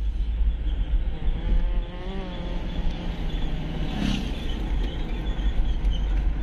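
Road noise inside a moving car: a steady low rumble from the tyres and engine under an even hiss.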